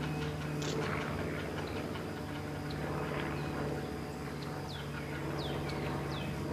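Young great blue herons begging at the nest with a clacking, ticking chatter. Several short downward chirps from a smaller bird come in the second half, over a steady low hum.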